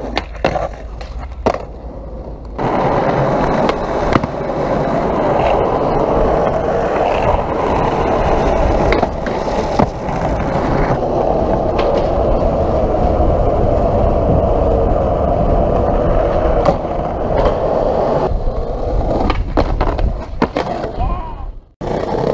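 Skateboard wheels rolling over concrete and paving in a long steady stretch, broken by sharp clacks of the board's tricks and landings, with a few abrupt cuts between clips.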